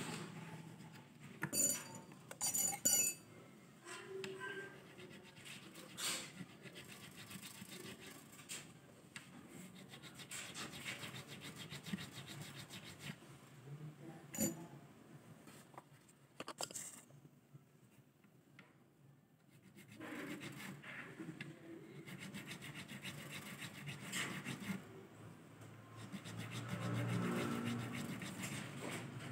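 A small file rasping back and forth across a bass guitar's nut, in scratchy rubbing strokes, with a few sharp metallic clinks about two seconds in. The strokes pause briefly about two-thirds of the way through, then resume as steady rubbing.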